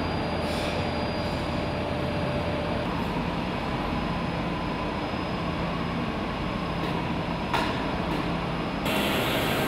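Steady factory-hall machinery noise and hum, with a few faint held tones. There is one sharp click about seven and a half seconds in, and the noise turns brighter and hissier near the end.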